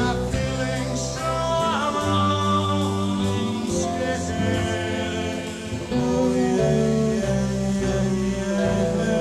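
A rock band playing live, with singing in long held notes over the instruments and a short sliding note about two seconds in.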